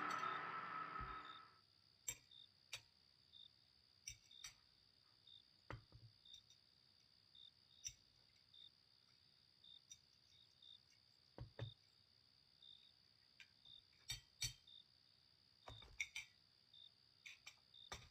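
Near silence in a quiet room: a sound fades away over the first second and a half, then faint crickets chirp steadily while spoons clink now and then against bowls and plates, at irregular moments.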